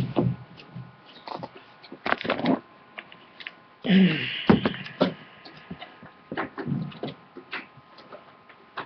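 Handling noise of a camera being reached for and adjusted: scattered knocks and clicks, with a louder, longer rustle about four seconds in.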